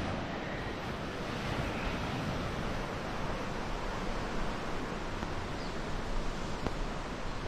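Steady wash of sea surf with some wind.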